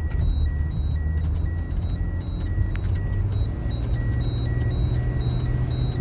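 Car driving on a paved road, heard from inside the cabin: a steady low road and engine rumble. Over it, a thin high electronic beeping pattern repeats evenly throughout.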